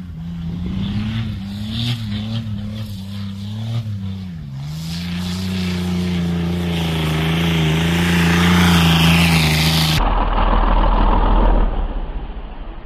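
Holden VX Commodore's turbocharged 3.8-litre V6, running a Holset H1C turbo at about 5 psi, driven hard on a dirt track: the engine note wavers with the throttle, dips briefly about four and a half seconds in, then holds high and grows louder. About ten seconds in it gives way suddenly to a low rumble and rush as the car slides past close by, throwing up dirt.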